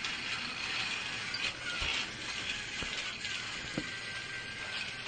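A small geared mechanism whirring, with two sharp clicks about a second apart near the middle.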